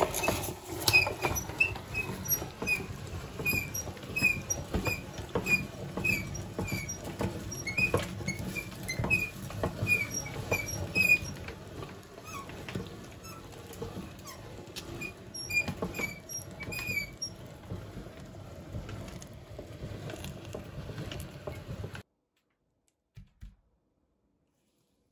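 Meat grinder being run with ice cream in it: short high squeaks repeat about every two thirds of a second over a dense crackling and clicking. The sound cuts off abruptly about 22 seconds in, leaving near silence with a couple of faint ticks.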